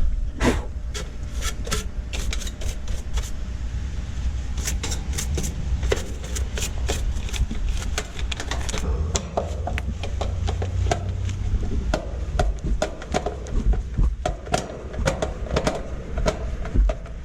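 Stiff brush scrubbing and scraping over the condenser's electrical compartment and capacitor area, a quick irregular run of short scratchy strokes and clicks, over a low steady rumble.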